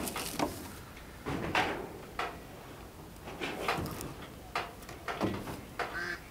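A string of separate knocks and rattles from a corrugated sheet-metal shed and its door, as someone moves in the doorway.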